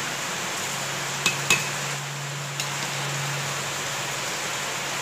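Chicken curry and water boiling hard in an open aluminium pressure cooker, giving a steady bubbling hiss. Two sharp metal clinks come about a second and a half in and a fainter one a second later, as something metal knocks against the pot.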